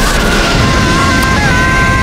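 Rocket engines firing, a dense roar that starts suddenly as the rocket-strapped car blasts off up the ramp, with two held music notes sounding over it.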